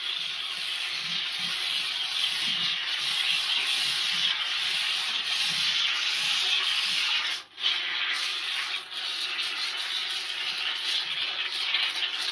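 A scraper rasping steadily as it spreads orange fire-block foam over the back of a ceiling tile, with a brief pause about seven and a half seconds in.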